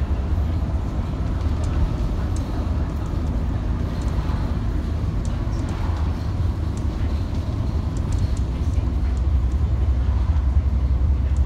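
Double-decker bus heard from inside on the top deck while cruising on an open road: a steady low engine and road drone, with occasional light ticks and rattles from the bodywork.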